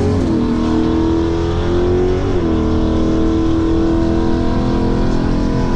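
Inside a Tesla Model 3 Performance accelerating hard on a drag-strip pass: a loud drone from the drive and the car's motion over steady road and wind rumble. Its pitched tone shifts about at the start and again about two seconds in.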